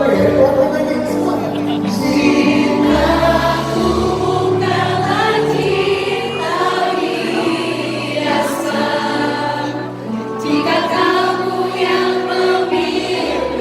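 A pop song performed live, with singing and several voices together over instrumental accompaniment.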